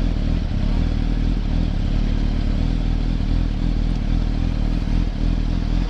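2007 Yamaha YZF-R1's inline-four engine running steadily at low revs as the bike creeps forward slowly, a continuous low rumble.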